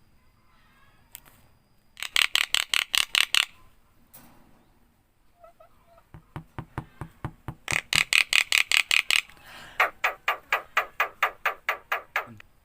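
Javan myna giving rapid rattling chatter, three runs of sharp repeated notes at about eight a second.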